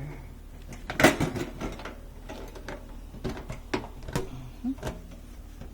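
Chimney pipe being pushed and worked into the hole cut in a steel barrel lid: a loud metal knock about a second in, then a run of lighter clicks and knocks.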